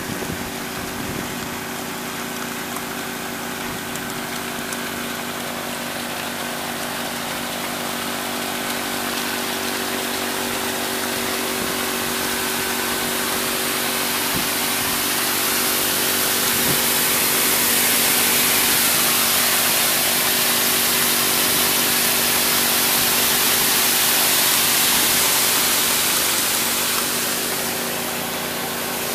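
Small Honda engine-driven water pump running at a steady speed, powering a highbanker sluice. Over it, the rush of water pouring down the sluice swells through the middle and eases near the end.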